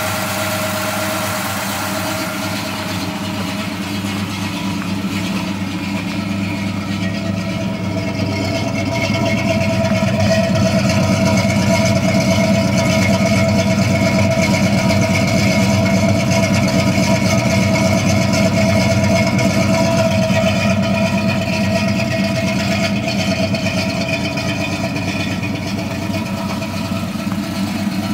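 1970 Pontiac GTO's V8 engine idling steadily, with no revving. It gets louder from about eight seconds in for some ten seconds, then eases back a little.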